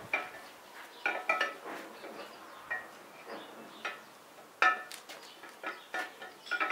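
Irregular metal clinks and knocks, about a dozen, each with a brief ring: a steel camshaft being worked by hand into the new camshaft bushings of a D115 tractor engine block, a trial fit of the shaft in the bushings. The loudest knock comes a little past halfway.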